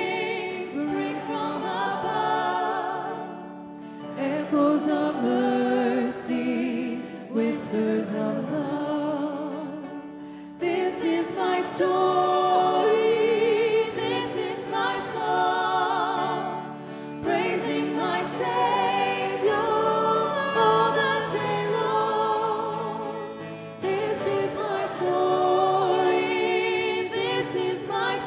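Hymn singing by a congregation led by a vocalist, with acoustic guitar and piano accompaniment, moving from a verse into the refrain in phrases with short pauses for breath.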